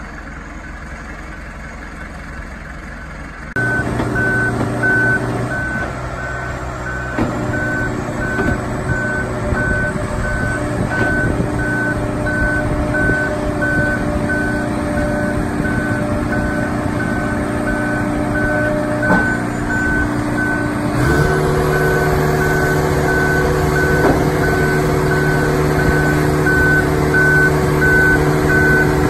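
Marine travel lift's engine running while it hoists a boat, with its warning alarm beeping steadily from a few seconds in. About two-thirds of the way through, the engine speeds up with a jump in pitch as it takes the lift.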